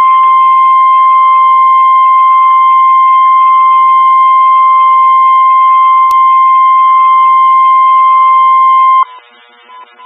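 NOAA Weather Radio 1050 Hz warning alarm tone: one loud, steady electronic tone that stops abruptly about nine seconds in. It is the alert signal that a weather watch or warning message follows, here a severe thunderstorm watch.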